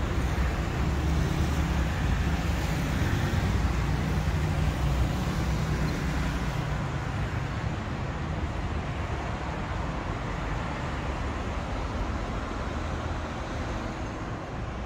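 Street traffic: a car engine humming close by over a steady rush of road noise, easing off after about six seconds.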